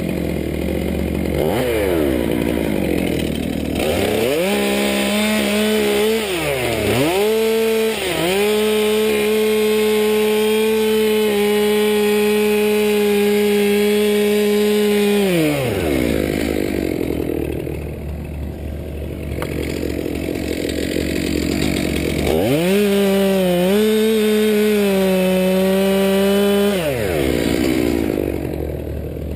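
Chainsaw idling, then run at full throttle twice, about twelve seconds the first time and about four the second, its pitch dipping as the chain bites into the wood, and dropping back to idle between the cuts.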